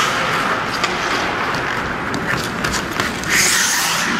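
Ice-hockey skate blades scraping and carving on rink ice, with a louder high hiss of scraping near the end.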